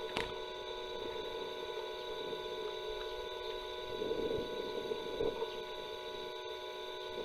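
Steady hum and hiss from a nest camera's microphone, with a short click just after the start and brief swells of low rustling about four and five seconds in.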